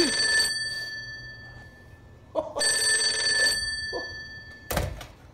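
Telephone bell ringing twice, each ring about a second long and the two about two seconds apart, then a sharp knock near the end.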